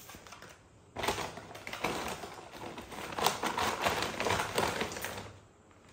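A takeaway carry bag rustling and crinkling as food containers are handled inside it, a dense run of small crackles that starts about a second in and stops near the end.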